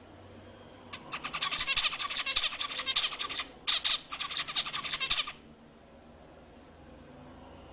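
Zebra finch singing: a fast run of rapid clicking notes that starts about a second in, breaks off briefly, then resumes for about another second and a half before stopping.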